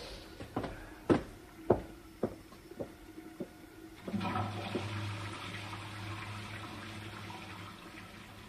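A series of sharp knocks, evenly spaced about twice a second, then about four seconds in a toilet flushes: a sudden rush of water with a low hum that slowly dies away.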